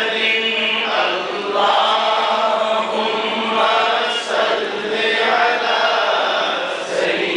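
A man reciting a naat, an Urdu devotional poem in praise of the Prophet, in a chanting voice into a microphone, holding long notes that bend and break about every second.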